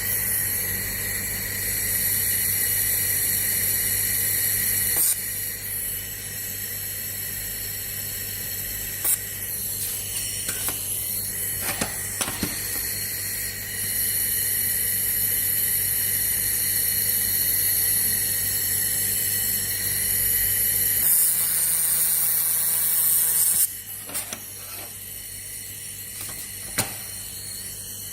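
1 kW handheld fiber laser welding machine running, with a steady electrical hum under a high-pitched whine and hiss. A few sharp clicks come through, and a louder hiss rises about three quarters of the way in and then cuts off, leaving the machine quieter.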